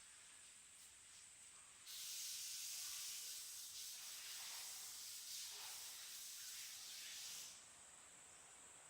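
Air blowing from a Fujitsu AS-X71F2 room air conditioner, a high hiss of rushing air. A stronger rush starts suddenly about two seconds in and stops abruptly a little before the end.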